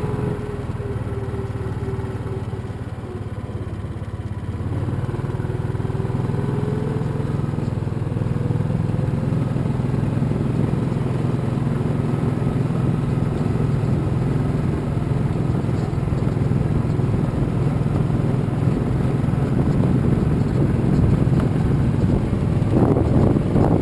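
A small farm vehicle's engine running steadily as it drives across the fields. It picks up about four or five seconds in and holds there, with a few knocks and rattles near the end.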